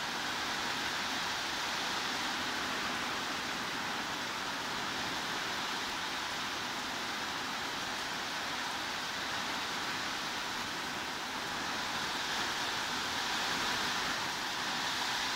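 Steady heavy rain, an even hiss with no single drops standing out.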